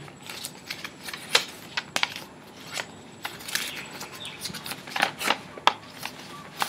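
Paper rustling and light clicks from paper receipts being handled, in short scattered bursts with a few sharper ticks.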